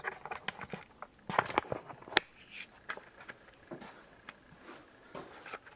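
Scattered light clicks and knocks, with one sharper click about two seconds in: metal and plastic parts of a vending machine being handled.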